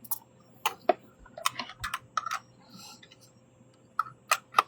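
Irregular sharp clicks and taps of small hard objects being handled, in two clusters with a quieter stretch in between.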